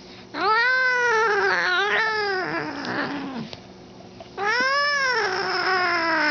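Domestic cat yowling angrily: two long, drawn-out wails, each rising then falling in pitch, the second starting about four seconds in.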